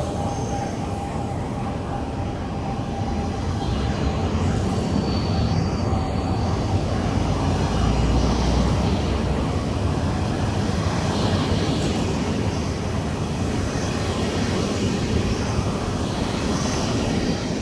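Dutch NS DDZ double-decker electric train rolling past at the platform, a steady rumble of wheels and running gear that grows a little louder around the middle.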